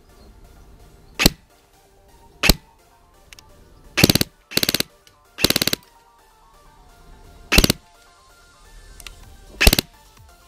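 ASG Scorpion Evo airsoft electric gun on an M130 spring, firing 0.2 g BBs at about 400 fps into the lens of Bolle Tracker glasses. There are single shots about one and two and a half seconds in, then three short rapid bursts, then two more single shots. Faint background music runs underneath.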